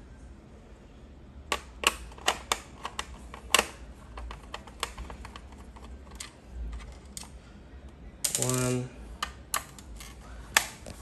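Phillips screwdriver unscrewing the screws in the plastic base of a Huawei B612 router: irregular sharp clicks and ticks of the metal tip on the screw heads and plastic casing. A brief low buzzing sound comes about eight seconds in.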